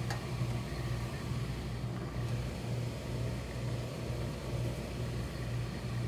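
A steady low mechanical hum that throbs slightly at a regular pace, from workshop machinery running continuously.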